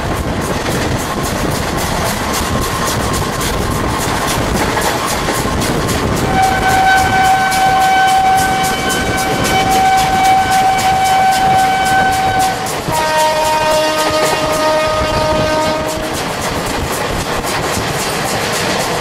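Two trains running side by side at speed, their wheels clattering rhythmically over the rail joints. A locomotive horn sounds for about six seconds near the middle, followed by a lower-pitched horn blast of about three seconds.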